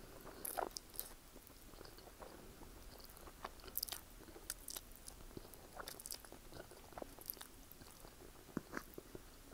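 A person eating noodles close to the microphone, slurping strands into the mouth and chewing, with many short mouth clicks scattered throughout and a denser run about half a second in.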